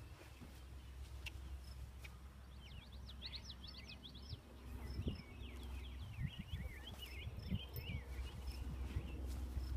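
A small bird singing in two spells of quick, gliding chirps, over a steady low rumble with a few soft thumps.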